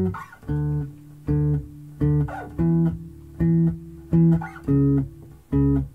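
Four-string electric bass playing root and octave plucked together as short, detached notes with silence between them, about nine in all, the pitch stepping up midway and back down near the end.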